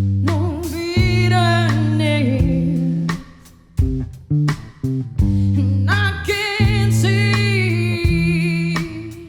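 Song performed live: a singer holds long notes with vibrato in two phrases, over held low bass notes and plucked guitar.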